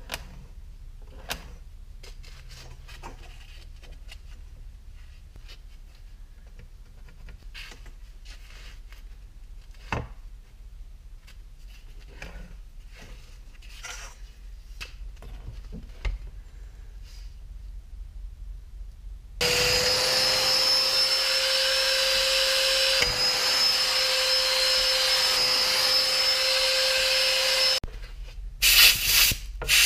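Light scratching of a pencil drawn along a steel ruler on a wooden slab, with a few clicks. About two thirds of the way in, a power tool starts and runs steadily at one speed with a high whine for about eight seconds while small slots are cut into the slab, then stops, and a few short loud bursts follow near the end.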